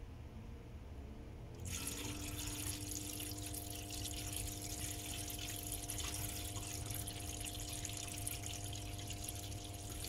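Dishwasher drain pump running: its hum rises in pitch as it spins up, then about two seconds in water starts rushing through the looped drain hose into the sink drain, with the pump humming steadily under the flow.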